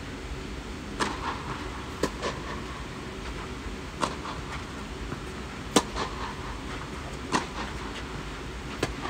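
Tennis rackets striking the ball back and forth in a rally: sharp pops every one to two seconds, the loudest about two-thirds of the way through, with softer knocks between them, over a steady low rumble.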